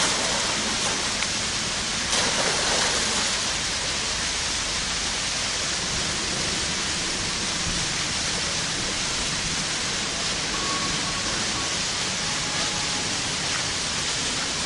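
Steady hiss of running water, with a slightly louder rush about two seconds in.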